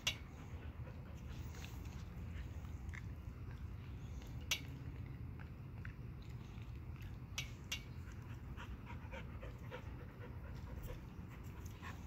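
A Chihuahua and a puppy playing, with panting and scattered sharp clicks and taps; the sharpest click comes about four and a half seconds in.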